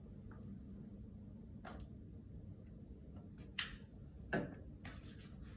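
Four short, faint clicks and taps spread over a few seconds, the second and third the sharpest, over a low steady hum.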